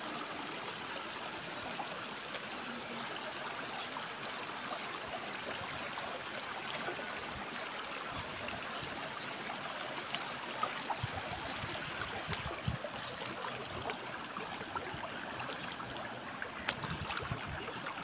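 Shallow, rocky mountain stream rippling and trickling over stones: a steady, even rush of running water. A few soft low bumps come through in the second half.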